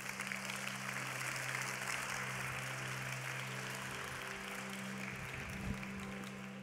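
Audience applauding, over a steady low chord of background music.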